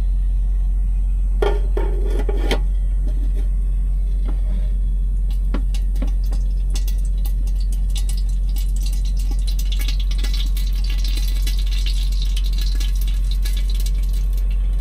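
Cookware clinking and knocking about two seconds in, then hot cooking oil crackling and sizzling in the pan from about halfway through, over a steady low hum.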